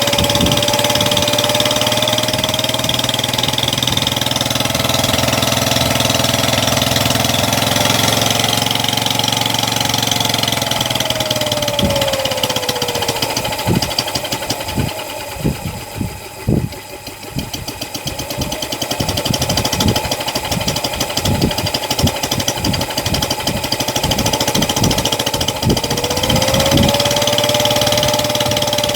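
Homemade four-stroke engine converted from a refrigerator compressor, running on LPG, with a whine that rises and falls with its speed. About halfway through it slows to separate, uneven firing strokes and drops in loudness, then picks up speed again and runs steadily.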